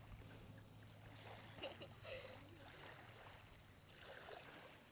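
Near silence: faint room tone with a few soft, indistinct sounds.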